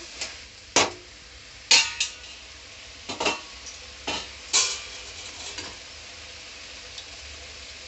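Perforated steel skimmer stirring cooking brinjal pieces in an aluminium kadai, scraping and knocking against the pan in uneven separate strokes. The strokes stop about six seconds in, leaving a faint steady background.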